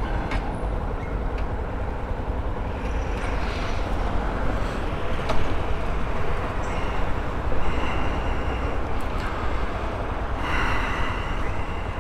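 Yamaha XTZ Lander 250's single-cylinder engine running as the motorcycle is ridden, with steady wind and road noise, heard through a microphone inside the rider's helmet.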